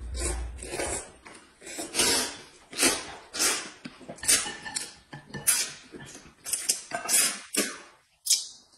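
People slurping wheat noodles and broth in a run of short, repeated slurps, about two a second.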